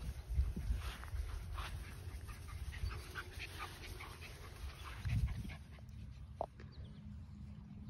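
Seven-week-old German Shorthaired Pointer puppies play-fighting: many short, faint yips and whimpers, then one short clear yip near the end, over a low rumble on the microphone.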